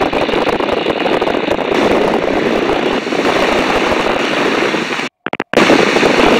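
Steady engine and slipstream noise of a de Havilland DH.82A Tiger Moth in level flight, its Gipsy Major four-cylinder inverted inline engine running at cruise and heard through the open cockpit. The sound cuts out abruptly for a moment about five seconds in.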